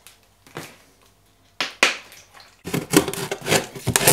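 Handling noises: a faint click, two sharp scrapes about a second and a half in, then a dense run of rubbing, tapping and knocking from near the three-second mark.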